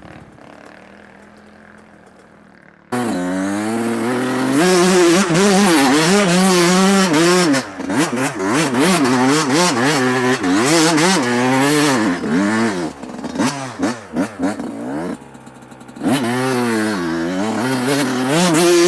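Dirt bike engine revving hard, its pitch rising and falling as the throttle is worked on and off on a trail climb. It starts suddenly about three seconds in after a quieter stretch, and near the end it cuts back briefly before revving again.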